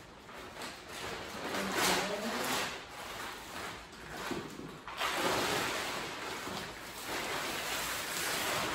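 A large black plastic tarp rustling and crinkling in surges as it is dragged across the floor and lifted up over bent tent poles. It is loudest and most continuous in the second half.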